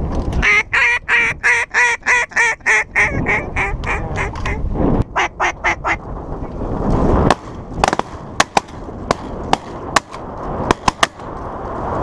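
Duck call blown in a fast run of about a dozen quacks, then a shorter run of about five. In the second half a string of sharp cracks, over wind buffeting the microphone.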